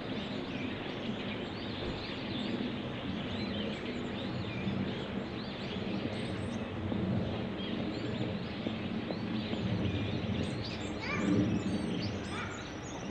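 Outdoor ambience of many small birds chirping over a steady low background hum, with a louder burst of rising calls about eleven seconds in.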